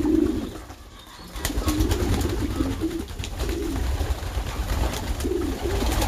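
Pigeons cooing in several bouts, over a steady low rumble.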